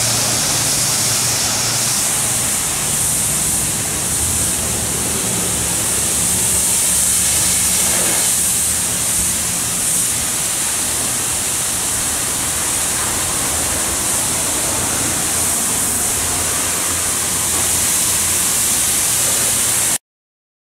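High-pressure water spraying from a self-serve car wash wand onto a fire truck's body: a steady hiss over a low hum. It cuts off suddenly near the end.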